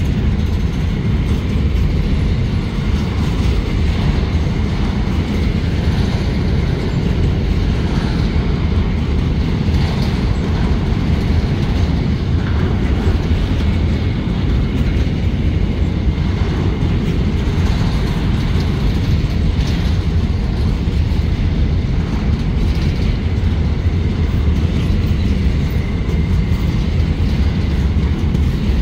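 Freight train of covered hopper wagons rolling past close by: a steady, loud low rumble of steel wheels on rail, with occasional faint clacks.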